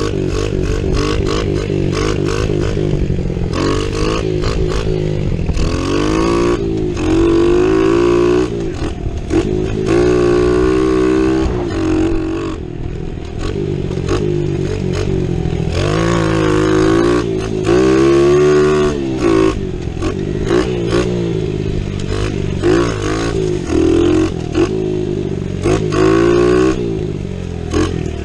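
Kawasaki KLX110 pit bike's four-stroke single-cylinder engine being ridden hard, revving up and dropping back many times as the rider works the throttle and shifts gears, its pitch climbing and falling over and over.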